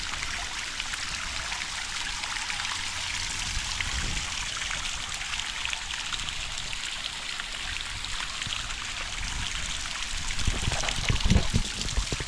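Small waterfall running steadily into a rock pool, a trickling, splashing water sound. A few low knocks near the end.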